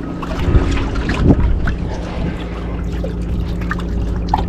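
Water trickling and splashing beside the boat in a concrete lock chamber, with many small scattered splashes and a louder swell about a second in, over a steady low hum.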